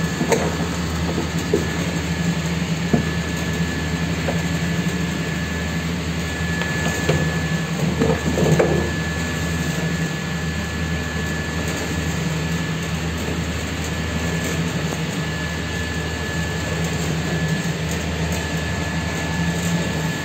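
Detergent bar making machine running with a steady low hum and a thin high whine. A few light knocks and, about eight seconds in, a short clatter come from the bars being handled.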